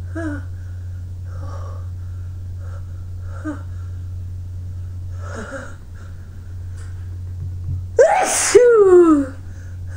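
A person's short, breathy catches of breath every second or two as a sneeze builds, then one loud sneeze about eight seconds in: a sharp intake and a voiced 'achoo' that falls in pitch. The sneezes are being brought on by tickling the nose.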